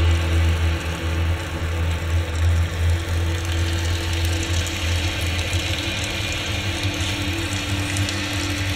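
Electro-acoustic ambient drone: a deep, steady hum with a fainter held tone above it and a hiss-like haze over the top.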